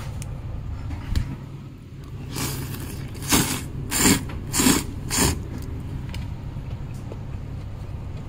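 A person slurping soba noodles: about five short, noisy slurps in quick succession in the middle, over a steady low hum.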